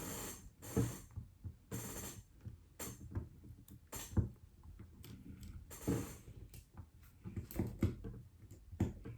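Irregular light clicks, taps and short scraping sounds from handling a small precision screwdriver and tiny screws while taking the four LCD screws out of an iPad Mini.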